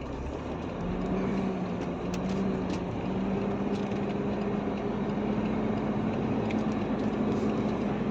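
Truck engine heard from inside the cab, a steady hum that grows louder about a second in and then slowly rises in pitch as the truck pulls away and gathers speed.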